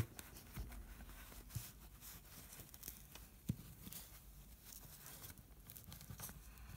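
Faint rustling of a small cloth t-shirt being worked onto a plastic action figure by hand, with a few soft knocks of fingers and figure, the clearest a little past halfway.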